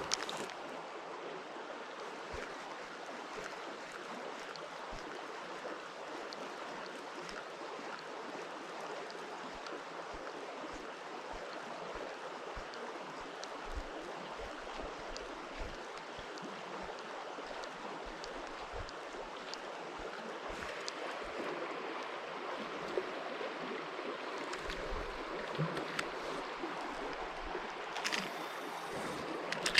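River water running steadily, a continuous rushing hiss, with occasional soft low thumps.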